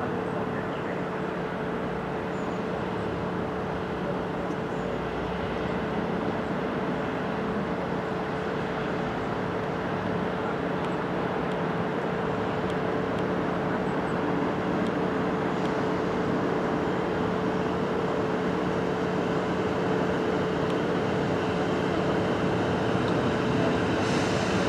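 Diesel multiple unit's engine running with a steady hum, slowly growing louder.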